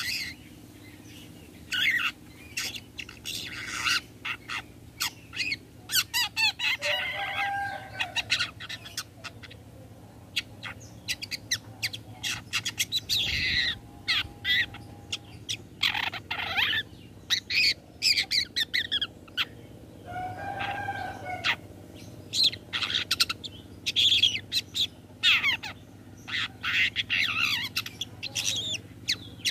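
Long-tailed shrike (cendet) singing: rapid runs of short, sharp, scratchy notes, broken by a few lower, fuller notes.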